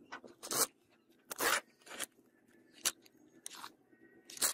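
Moulding sand thrown by the handful into a steel casting flask and pressed down by hand: a series of short gritty rushes, roughly one every half second to second.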